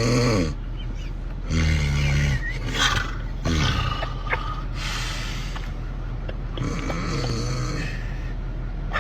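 A person snoring loudly. There are three long snores with a low droning pitch, near the start, about two seconds in and about seven seconds in, and rougher breathy snorts between them.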